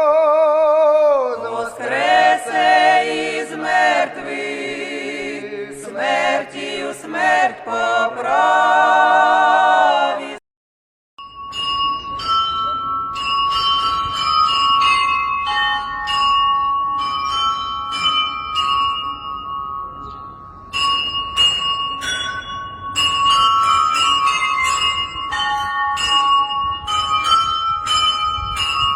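Music with a wavering melody for about ten seconds, then a short break, then bells ringing: repeated strikes whose high tones ring on and overlap.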